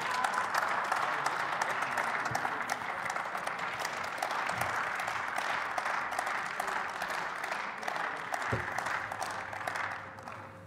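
Applause from members of parliament in a plenary chamber: many hands clapping steadily, then dying away near the end.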